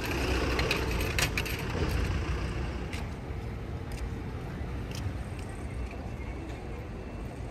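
Street ambience with a low traffic rumble, swelling in the first two seconds as a vehicle passes, and a few light clicks.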